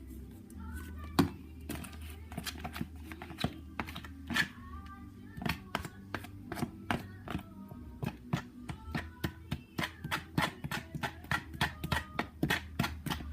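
Quick irregular clicks and taps of utensils and containers being handled while mixing slime ingredients, over Christmas music playing in the background.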